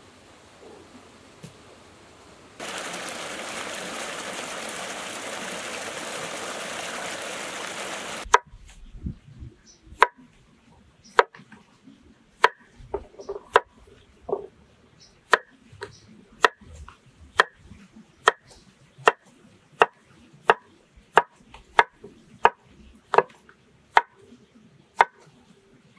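Meat cleaver chopping peeled squash into slices on a wooden cutting board: sharp, evenly spaced knocks, about one every three-quarters of a second, starting about eight seconds in. Before that, a steady rushing hiss lasts about six seconds.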